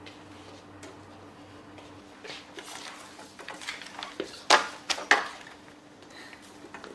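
A run of light clatters and knocks, like objects being handled, with two sharp, louder knocks about four and a half and five seconds in.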